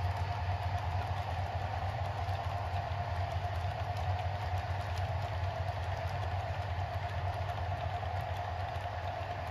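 Model freight train running on the layout: a steady low hum with a steady higher whine over it and faint wheel clicks on the track.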